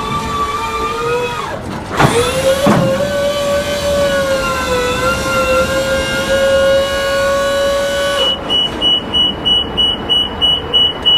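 Compact 14 scissor lift's hydraulic pump whining steadily as the platform rises, with two clicks about two seconds in. About eight seconds in the whine stops and a high alarm starts beeping about three times a second: the tilt alarm, set off because the raised lift stands on a slope of more than 2 degrees.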